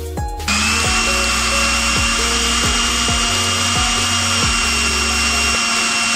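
Electric blender motor switched on and running at a steady high speed with a constant whine, blending egg and oil into mayonnaise. It starts abruptly about half a second in and cuts off suddenly at the end.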